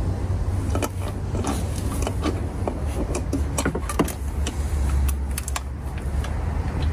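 Irregular metallic clicks and clinks of a hand ratchet and socket working the intake manifold bolts in an engine bay, over a steady low rumble.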